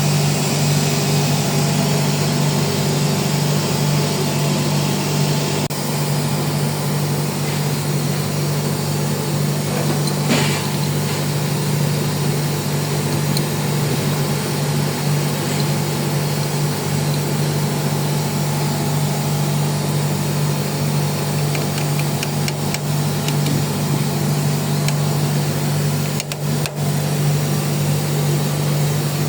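Air compressor running steadily with a constant low hum and a broad mechanical noise above it.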